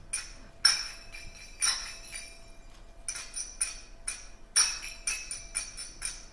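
Finger cymbals (zills) played by several players in a quick, even rhythm of bright metallic strikes that ring on, with a few much louder accented clashes and a short lull about midway.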